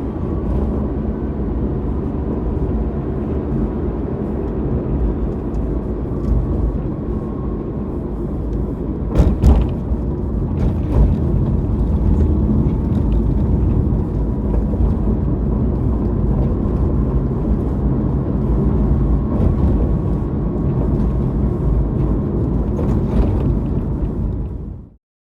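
Honda Vamos being driven: steady engine and road rumble, with a few short knocks about nine to eleven seconds in and again near the end, before the sound cuts off suddenly.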